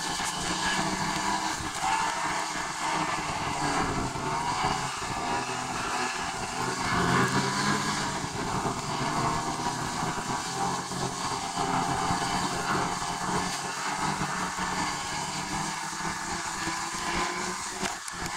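Steady running noise of a vehicle in motion: continuous road and engine noise with a low hum.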